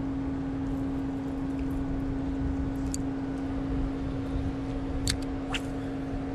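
A steady low hum and rumble, with a few light clicks about three and five seconds in as a fishing reel is handled.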